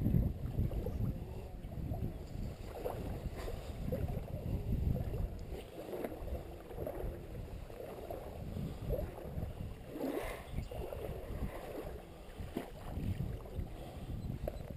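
Irregular water sloshing with a low wind rumble on the microphone.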